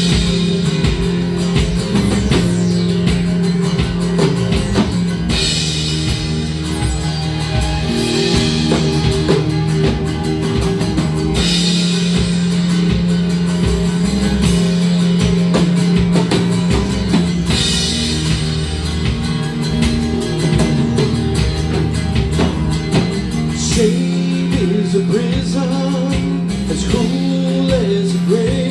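Rock band playing, with drum kit and electric guitar over sustained low notes.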